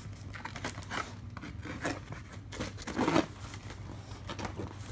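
Cardboard shipping boxes being shifted and the packing tape on one being slit open with a cutter: a run of short scraping, rubbing and crackling sounds, loudest about three seconds in.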